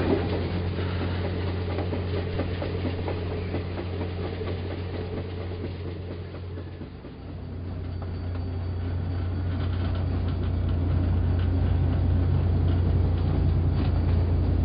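N scale model freight train running on layout track: a steady low hum with a fine rattle of wheels on rails. It dips about halfway through, then grows louder as the diesel locomotive approaches.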